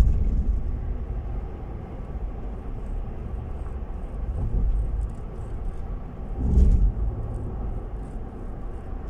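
Road and engine noise of a car being driven: a steady low rumble, swelling louder briefly about six and a half seconds in.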